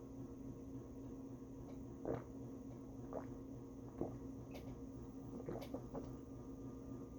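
Quiet eating sounds: a handful of brief soft clicks and wet smacks from chewing and handling food, spaced irregularly, over a steady low room hum.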